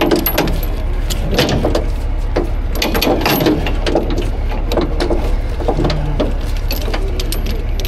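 Steel tow chain clinking and rattling in irregular bursts as it is fed and wrapped by hand around a truck's running gear, over a steady low engine drone.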